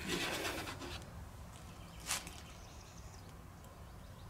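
Small metal washers and nuts being picked up and handled by hand: a short rustle at the start and one sharp clink about two seconds in.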